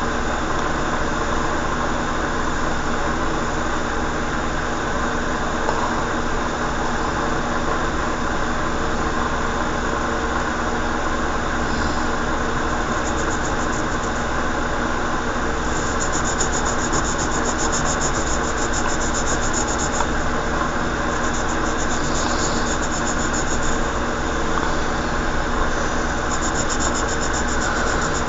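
A steady mechanical hum with several held tones, running unchanged throughout.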